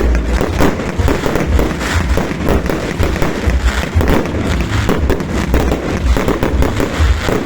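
Fireworks going off in a rapid, dense run of crackles and pops, over a steady low rumble.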